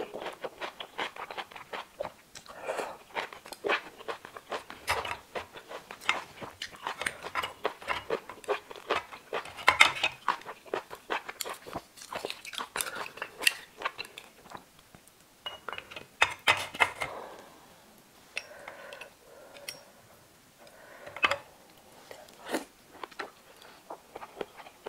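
Close-miked eating: noodles slurped from chili sauce and scallop meat chewed, a steady run of wet smacks and sharp clicks, with louder slurping bursts about ten and sixteen seconds in.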